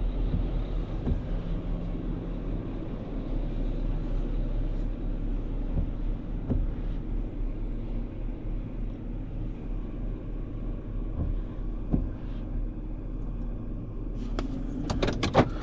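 Roll-off dumpster truck running and moving slowly, a steady low engine rumble with a few faint knocks.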